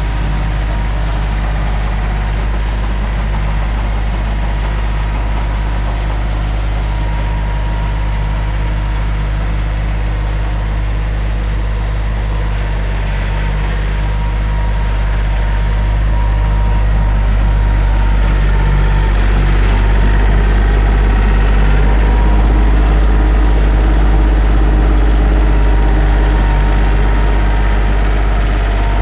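Tractor engine running steadily with its PTO-driven rototiller tilling the soil, a steady low hum that grows a little louder about halfway through.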